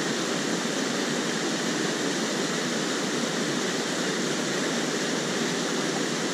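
Mountain stream running over rocks and a small cascade: a steady, even rush of water.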